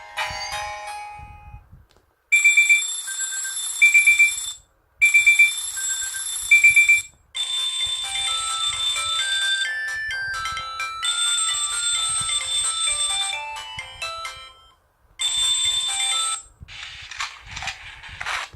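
Pantech&Curitel PG-L1200 folder phone playing its 64-poly ringtones. One melody tails off in the first second or so; after a short pause a new bright synth tune starts, played in repeated phrases with brief breaks between them.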